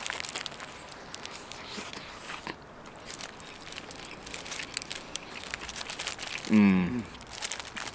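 A bite into a doner kebab in crisp grilled flatbread, then mouth-closed chewing, with the foil wrapper crinkling in the hands. About six and a half seconds in comes a short hummed sound from the eater, falling in pitch.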